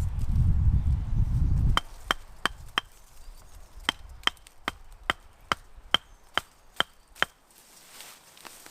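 A low rumble, then a tool striking repeatedly in bushcraft work: about thirteen sharp knocks, a little over two a second, with a short pause after the first four.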